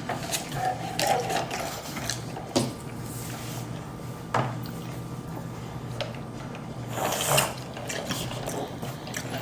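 Close-miked chewing and wet lip smacking while eating fast food, with many small wet clicks and a few sharper smacks.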